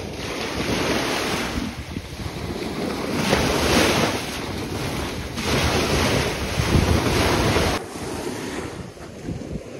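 Small waves washing up and draining back on a sandy shore, surging every couple of seconds, with wind buffeting the microphone. It drops off suddenly near the end.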